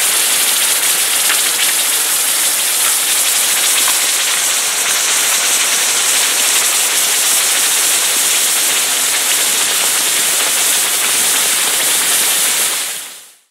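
A steady, even hiss like falling rain, fading in at the start and fading out shortly before the end.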